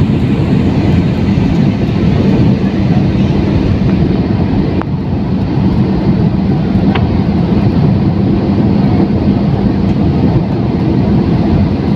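Airliner cabin noise heard by the wing: the underwing turbofan engine and rushing air make a loud, steady rumble with a constant low hum.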